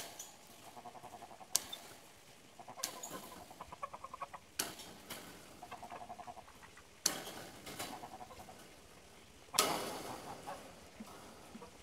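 Hand-tool work on a wire fence: five sharp snaps a second or two apart, each ringing briefly, with short runs of rapid ticking between them.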